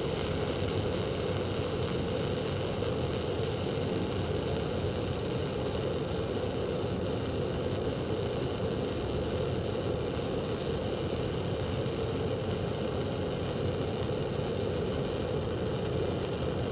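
Self-shielded flux-cored welding arc burning steadily and without breaks on .035 in. NR-211-MP wire. The machine is at its factory-recommended wire feed speed and voltage, with the torch travelling too slowly along the joint.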